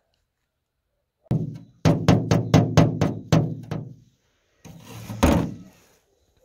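A metal spatula blade knocked about eight times in quick succession against a car's bodywork to shake loose the frost scraped onto it, then a short scrape with one harder knock.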